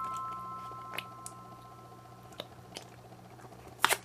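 Slime and a soft silicone ice-pop mold squeezed by hand: faint scattered squishes and clicks, with a sharper squelch near the end. A held musical note fades out over the first couple of seconds.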